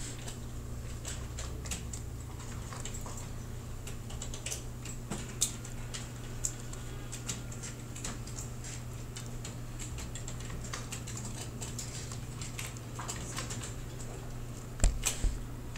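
Irregular clicking of a computer keyboard and mouse over a steady low hum, with a couple of heavier low thumps near the end.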